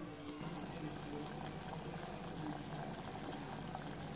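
Water at a rolling boil in an aluminium pot, giving a faint, steady bubbling.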